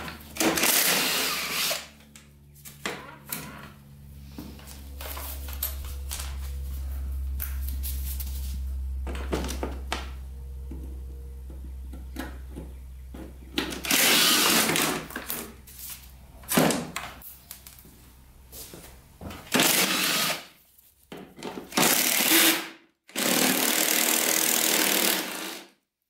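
Cordless drill with a socket extension spinning out the bolts of a dirt bike's plastic side panel and airbox, in several short runs of a second or two each.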